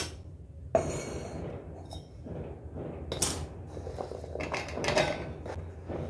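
A stainless-steel mixer-grinder jar knocked down onto the counter, then pieces of peeled raw mango slid off a plastic chopping board and dropping into the steel jar, with scattered clinks and taps against the steel.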